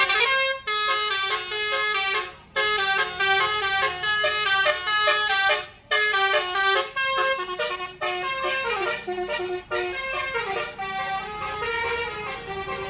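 Tour bus's multi-note musical air horn (telolet/basuri horn) playing a quick melody of short stepping notes, with brief breaks about half a second, two and a half and six seconds in. It grows softer over the last few seconds.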